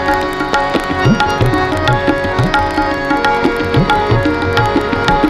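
Instrumental interlude of a Hindi devotional bhajan. Tabla play a busy rhythm, with bass-drum strokes that glide up in pitch, under a sustained melody on harmonium and violin.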